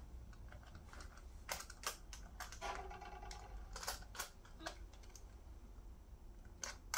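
Light metallic clicks and clinks of terminal nuts being spun finger-tight onto the studs of LiFePO4 prismatic cells, seating against the busbars. The clicks are scattered and irregular.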